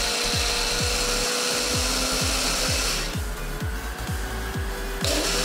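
Personal bullet-style blender's motor running as it blends mango, milk and ice into a milkshake. It stops about three seconds in and starts again near the end. Background music plays underneath.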